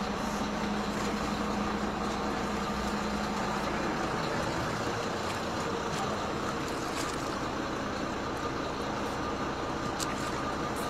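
A vehicle engine idling steadily, a low, even hum with outdoor street noise, broken only by a few faint clicks.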